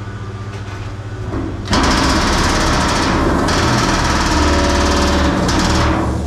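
Power nibbler cutting through the steel wall of an oil tank: a loud, rapid chattering that starts just under two seconds in and stops shortly before the end. A steady engine hum runs underneath.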